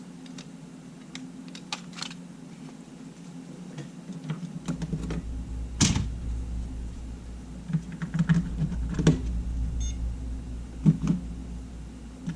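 Scattered small clicks and knocks from handling a camera and its battery, the loudest about six seconds in. A steady low hum runs underneath and gets stronger about four and a half seconds in.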